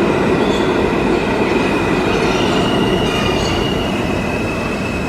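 New York City Subway R160 train running along the platform: a loud, steady rumble of wheels on rail with a thin high wheel squeal over it, easing off slightly toward the end.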